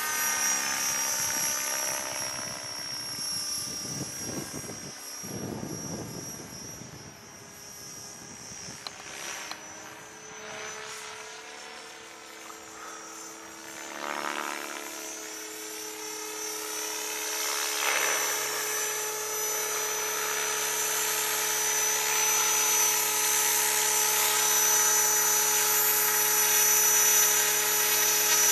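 Align T-Rex 600 radio-controlled helicopter flying, its motor and rotor giving a steady high-pitched whine. The sound fades as it flies far off, then grows louder as it comes down to hover low near the end.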